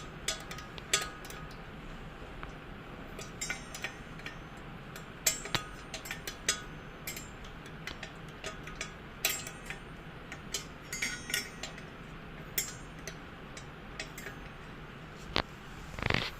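Scattered light metallic clinks and ticks at irregular intervals as a 10 mm wrench is worked on a nut and bolt, with a louder handling bump near the end.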